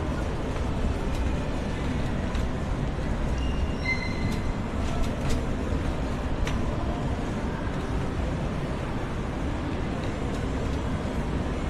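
Steady low rumble of vehicle noise, with a few faint clicks and a short high beep about four seconds in.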